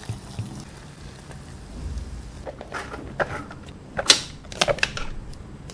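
Soaked instant noodles slide and flop out of a tipped cup onto a baking tray. Several sharp taps and knocks come in the second half, loudest about 4 seconds in.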